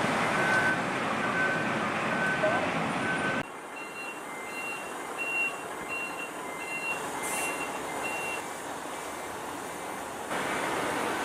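Vehicle reversing alarms beeping over steady engine and port noise: first a single-pitch beep about every two-thirds of a second, then, after an abrupt cut to a quieter spot, a higher beep alternating between two pitches about twice a second, which stops a few seconds before the louder rumble returns near the end.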